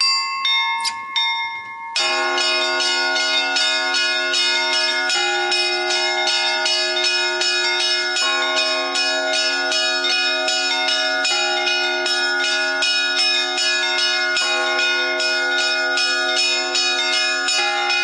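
Russian Orthodox church bells rung by hand in a wooden belfry. A few single strikes ring out, then about two seconds in a full peal begins: small bells struck rapidly over the larger bells ringing on steadily.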